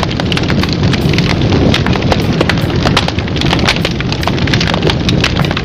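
Loud, continuous rumbling noise with dense, irregular crackles and pops through it.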